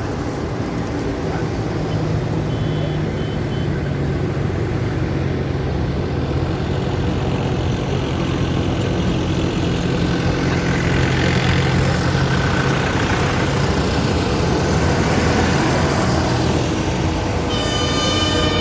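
Diesel farm tractor engines running as a line of tractors drives past, growing louder as one passes about halfway through. Near the end a vehicle horn starts sounding.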